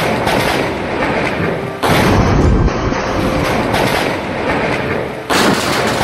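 Nearby lightning strike and its thunderclap: a sudden loud crack that rumbles off, heard twice as the clip replays, about two seconds in and again near the end.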